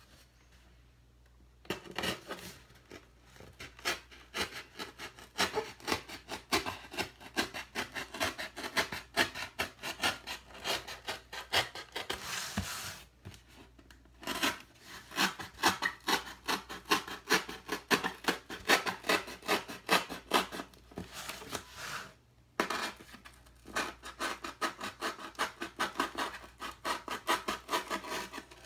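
X-Acto craft knife blade scraping through the corrugated cardboard of a white shipping box in quick short strokes, cutting out a window. It starts about two seconds in and pauses briefly about halfway through and again near the end.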